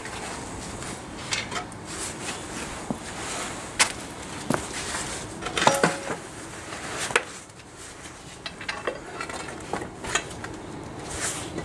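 Scattered metallic clinks and knocks as steel shims and the drive-shaft flange are handled on their mounting bolts. One clink about six seconds in rings briefly.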